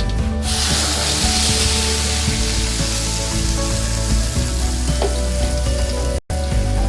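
Spices sizzling in hot oil in a pan. A loud sizzle flares up about half a second in as more ingredients go into the oil, then gradually eases.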